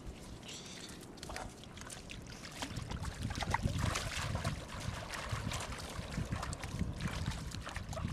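Children wading and splashing in shallow water, the water sloshing and splashing around their legs and hands, louder from about three seconds in, over a low rumble.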